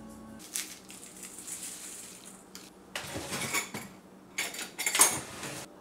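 A high hiss lasting about two seconds, then two bursts of clattering as stainless steel kitchenware is set down on a steel tabletop. The second burst is the louder.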